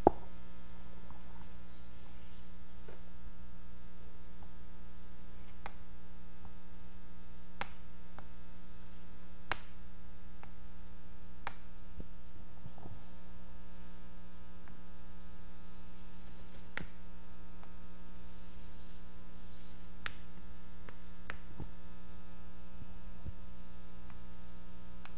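Steady electrical mains hum in the microphone's audio, with faint, short ticks every second or two as chalk strikes and drags on a blackboard.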